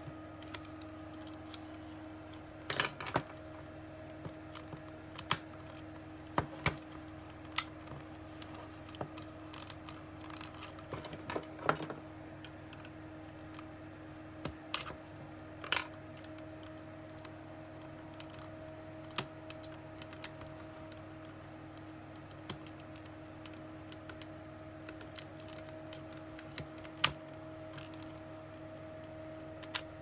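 Irregular sharp clicks and light clinks of small hard objects being handled, about twenty scattered through, over a steady low hum.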